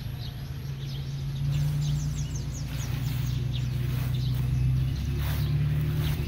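Small birds chirping in quick, short falling notes over a steady low hum.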